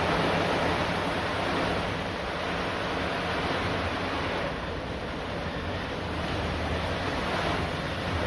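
CNC polishing machine running: a steady rushing hiss from the polishing work over a low motor hum, easing slightly in the middle and coming back up near the end.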